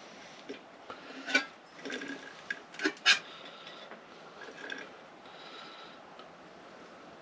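A metal coffee percolator and thermos being handled: a few sharp clinks and clatters, the loudest about one and a half seconds in and about three seconds in, over a faint steady hiss.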